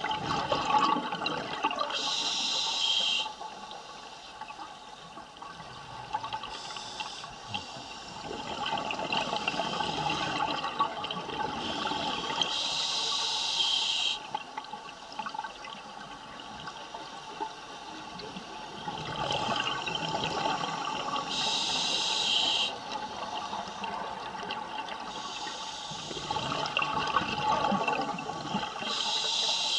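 Scuba diver breathing through a regulator underwater: a few seconds of exhaled bubbles gurgling, then a short, sharp hiss of air drawn through the regulator. The cycle repeats about every nine seconds, with four hisses in all.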